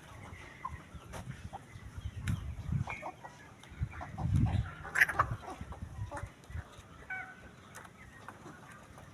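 A small flock of chickens clucking and peeping in short scattered calls, with a few low rumbles and a sharp click about five seconds in.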